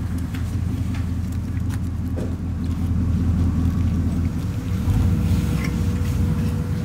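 Low, steady engine rumble of a motor vehicle running, growing slightly louder over the last few seconds.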